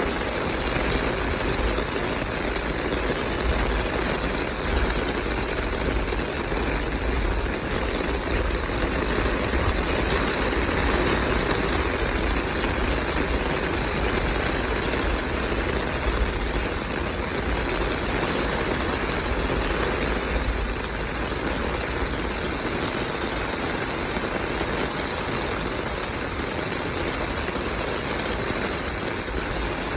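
Heavy rain falling steadily, with runoff water pouring from a drain outlet pipe onto concrete, over a steady low rumble.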